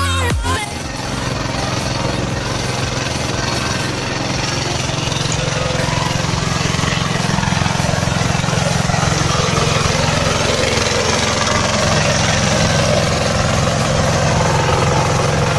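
Pagong (turtle tiller) hand tractor's 12-horsepower high-speed diesel engine running steadily under load as the tiller works through deep paddy mud.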